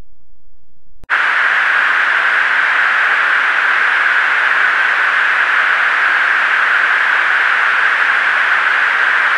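Steady static hiss of a military aircraft's recorded cockpit intercom audio, switching on suddenly about a second in.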